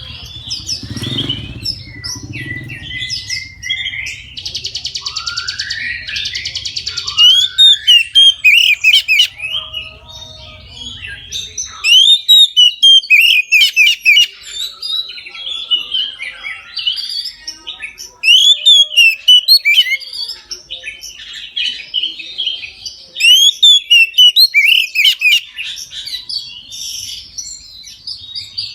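Oriental magpie-robin (kacer) in full, loud song: a fast, varied run of whistles and sharp chirps, with a buzzy rattling phrase a few seconds in. A low hum runs underneath and stops about twelve seconds in.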